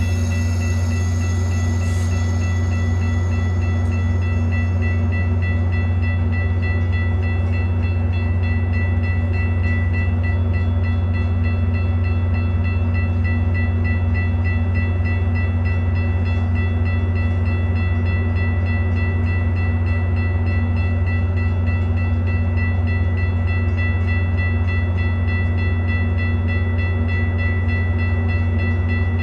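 Metra diesel commuter train running steadily: a strong, constant low engine hum with a thin high whine over it, unchanging throughout.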